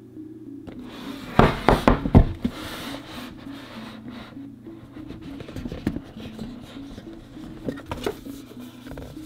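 Rigid cardboard boxes handled on a table: a quick run of knocks and taps a second and a half in, then the rub of the box's fitted lid being slid up and off, with a few light taps. Quiet background music with a repeating melody plays underneath.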